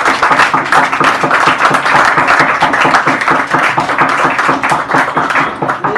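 Audience applauding, a dense steady patter of many hands clapping at the close of a spoken-word poem.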